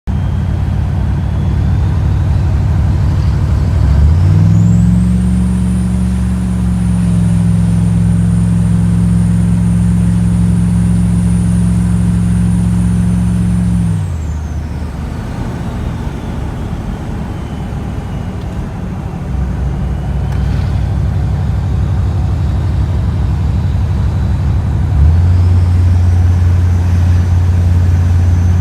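6.5-litre diesel engine with an S300 turbocharger revved up and held: the turbo whistles high, climbing as the engine speeds up about four seconds in and holding steady for about nine seconds. The whistle falls away as the revs drop, and near the end the engine revs up again and the whistle rises once more.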